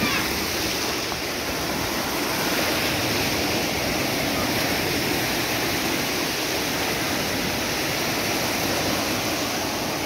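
Small sea waves breaking and foamy water washing over the shallows, a steady rush of surf that holds at an even level throughout.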